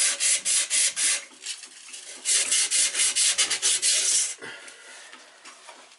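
Copper water pipe being scrubbed clean with an abrasive in quick back-and-forth strokes, about five a second. The scrubbing stops about a second in, starts again about two seconds in, and stops a little after four seconds.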